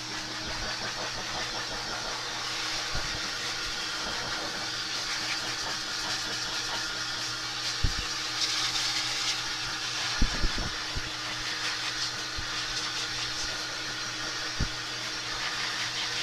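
Handheld hair dryer running steadily, a constant motor hum under a rush of air, with a few soft knocks now and then.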